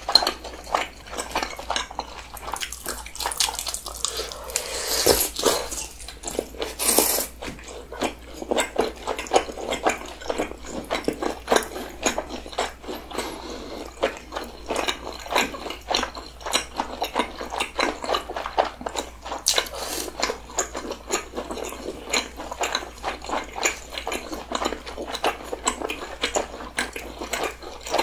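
Close-miked chewing of skewered sausage and rice cake (sotteok): wet, sticky mouth sounds with rapid clicks, from two people eating at once. A brief louder burst comes about seven seconds in.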